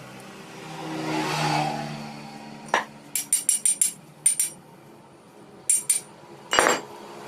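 Metal tools and engine parts clinking and tapping against each other, in several quick runs of bright ringing clicks, with a heavier knock near the end. Behind them a passing vehicle's engine swells and fades about a second in.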